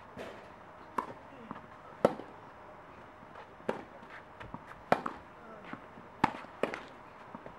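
Tennis rally: rackets striking the ball and the ball bouncing on the court, sharp pops about one a second, the loudest around two and five seconds in.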